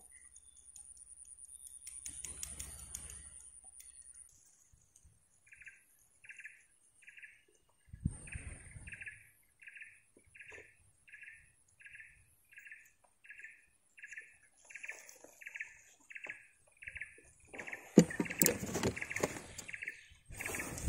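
A bird calling over and over, a short note repeated about every 0.7 seconds from a few seconds in, over a steady faint high-pitched hum. Near the end there is rustling and handling noise, the loudest part, as the camera moves through tall grass.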